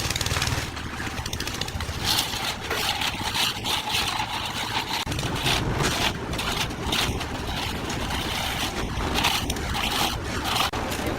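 An engine runs steadily under a series of short, irregular scraping strokes.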